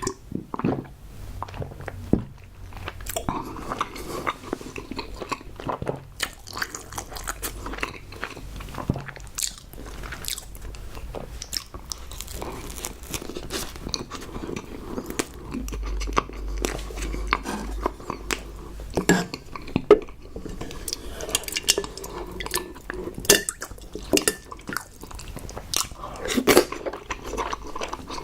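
Close-miked eating sounds: a person chewing and biting food, with many small crunches and mouth clicks scattered irregularly.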